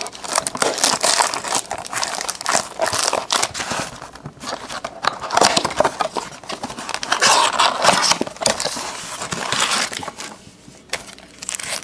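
Plastic shrink wrap crinkling and tearing as a sealed blaster box of trading cards is unwrapped and opened, in irregular stretches with brief pauses.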